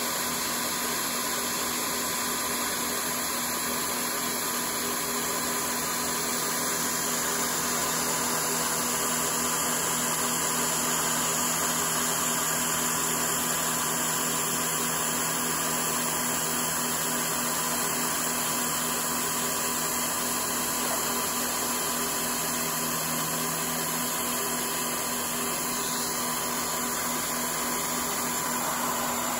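Bridgeport-type CNC knee mill running an end mill along a finishing pass in metal plate, with the steady hiss of spray mist coolant and a thin, steady whine from the spindle.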